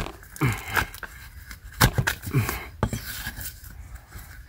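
A wild bamboo shoot being cut free at its base and worked out of damp soil: a handful of sharp chops and scrapes, about five strikes, with crunching of soil and dry leaves between them.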